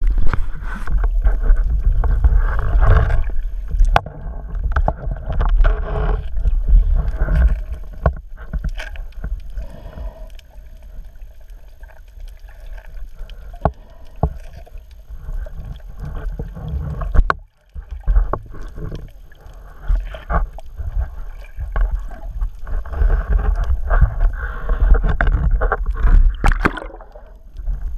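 Muffled water movement and heavy rumble around the camera, in uneven swells, with many scattered sharp clicks and knocks; the sound drops out completely for a moment about halfway through.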